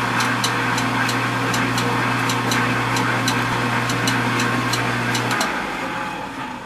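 Vintage KitchenAid KDS-18 dishwasher's motor running with a steady hum, a rushing noise and a quick ticking. About five seconds in the hum cuts off and the rest dies away: the cycle stops short, which the owner puts down to the mechanical timer having been jogged ahead and stuck.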